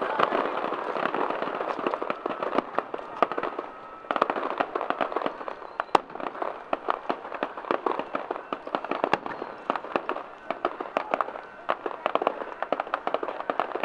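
Aerial fireworks bursting and crackling in a dense, irregular run of pops, with one sharp, loudest bang about six seconds in.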